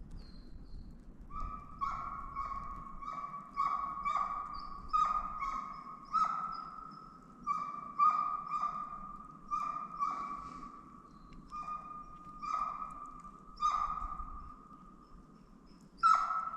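Russian hound baying in a long run of repeated barks, often about two a second with short pauses between runs, the last bark near the end the loudest: the hound giving tongue while chasing a mountain hare on its trail.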